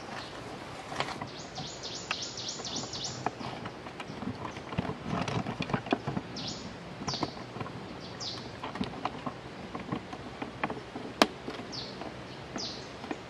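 Bulbul calls: a fast run of about ten high, downward-sliding notes about a second and a half in, then single high downward notes every second or so. Scattered clicks and knocks run through it, with one sharp click near the end.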